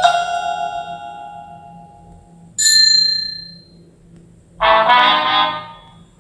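Samsung Galaxy S25 Plus notification tones played back heavily slowed down, one after another. The previous tone's chord dies away, a single bell-like ding sounds about two and a half seconds in, and a brassy chord starts about four and a half seconds in and fades out.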